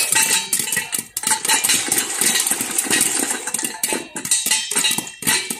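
Popcorn kernels popping in a covered stainless steel pot: a dense, irregular run of sharp pops and clicks.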